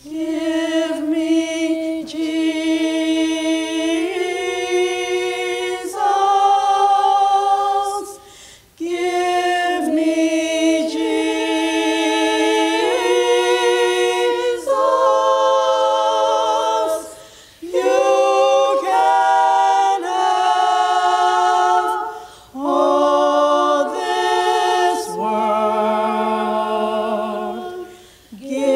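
A small group of women singing a spiritual a cappella in harmony: long held notes in several phrases, with brief breaks for breath between them.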